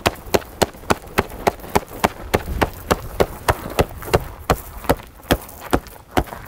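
A steady, fast beat of sharp thumps, about three to four a second: a gloved fist beating on a chest through a suede jacket.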